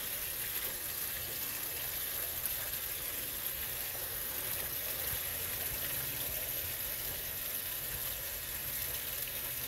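Steady splashing of water running into a garden koi pond, an even rushing hiss with no breaks.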